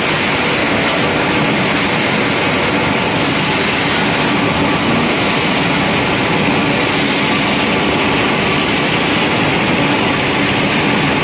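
Wood pellet mill machinery running: a steady, loud mechanical din from its electric motors, with a faint hum.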